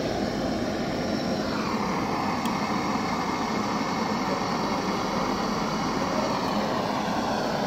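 Handheld gas blowtorch burning with a steady hiss.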